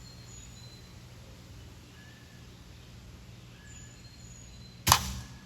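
Quiet outdoor background with faint bird chirps, then a single sharp BB gun shot near the end.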